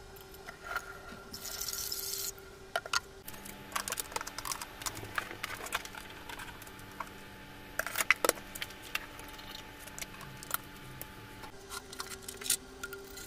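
Scattered light clicks, knocks and clatter of kitchen handling: a rice cooker's metal inner pot handled at a stainless steel sink and set into an electric rice cooker, then a plastic dish rack tray moved. A faint steady hum runs under most of the middle.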